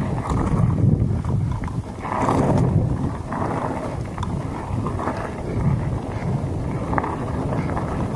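Wind buffeting the microphone of a mountain bike's point-of-view camera as it rolls down a loose gravel trail, with a steady low rumble of tyres on gravel and occasional small clicks and knocks from the bike.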